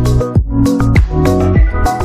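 Electronic background music with a steady beat and sustained synth tones.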